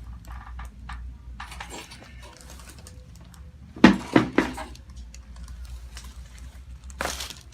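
A chiropractic neck adjustment: a quick run of three sharp pops from the cervical joints about four seconds in, after some small clicking and rustling of hands and clothing. A short rustle comes near the end.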